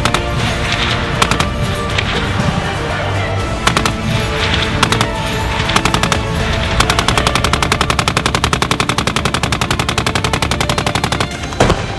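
Browning .50-calibre heavy machine gun firing: short bursts and scattered shots, then about four seconds of continuous fire at roughly nine shots a second, and a single loud bang near the end. Music plays underneath.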